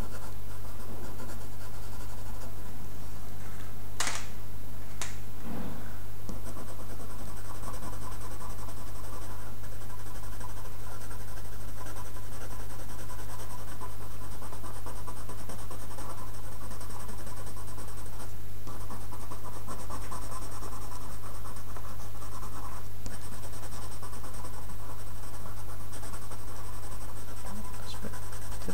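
Coloured pencil scratching on drawing paper in small shading strokes, over a steady low hum. Two sharp clicks about four and five seconds in.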